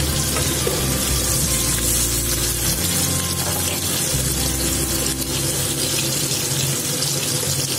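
Sliced onions sizzling steadily in hot mustard oil in a kadai.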